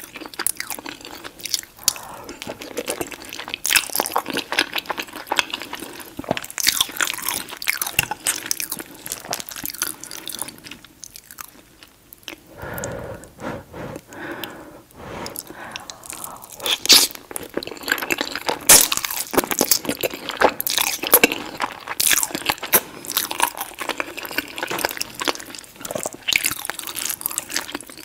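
A person chewing chili cheese fries with melted cheese and sour cream: repeated soft crunches and mouth sounds of eating, with a brief lull about halfway through.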